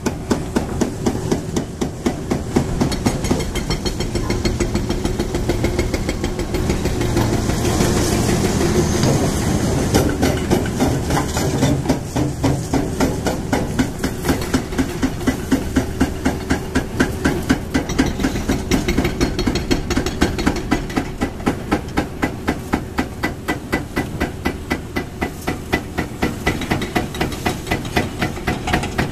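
Hydraulic breaker on a demolition excavator hammering concrete in steady, rapid repeated blows, a few a second, over the drone of heavy diesel excavator engines.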